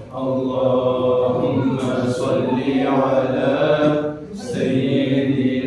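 Men's voices chanting salawat, Arabic blessings on the Prophet, into a microphone in a sustained melodic line, with a short break for breath about four seconds in.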